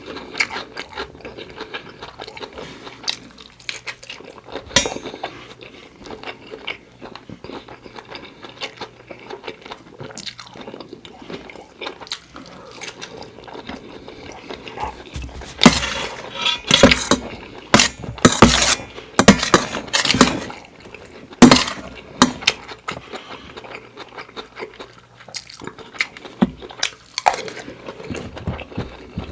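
Close-miked eating of seafood fried rice: chewing and biting, with a run of loud, sharp crunches and clicks from about halfway in, then quieter chewing again.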